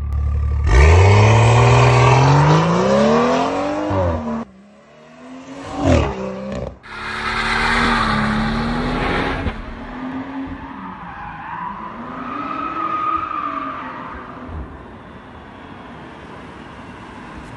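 BMW M140i's turbocharged straight-six revving hard, its pitch climbing steeply and then cutting off suddenly, followed by a loud hiss of tyres spinning in a burnout. Then the engine pitch swings up and down as the car drifts, with a tyre squeal in the middle of that stretch.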